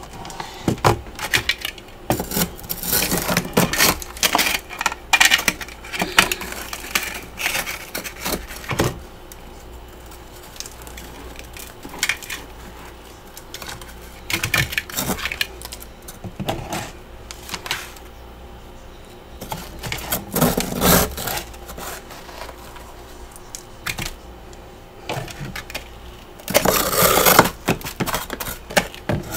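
A plastic scraper scraping and chipping thick frost off the walls of a freezer compartment, with crunching frost chunks dropping into a plastic bowl. It comes in irregular bursts, the loudest scraping near the end.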